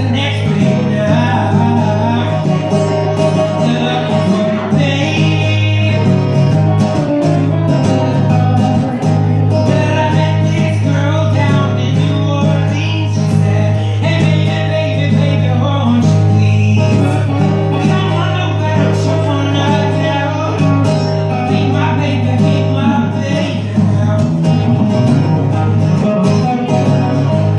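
Live acoustic guitar strumming a steady rhythm with an electric lead guitar playing melodic lines over it, in a country-tinged song.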